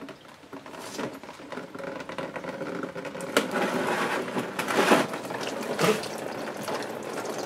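Engine coolant draining from an opened radiator drain petcock and splashing into a drain pan, the flow building about a second in, with a few sharp knocks along the way.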